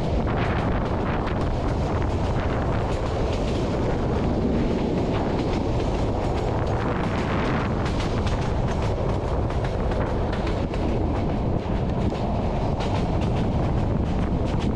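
Passenger train coaches running along the track, a steady rumble of wheels on rail with a rapid, irregular clatter of clicks, and wind rushing over the microphone.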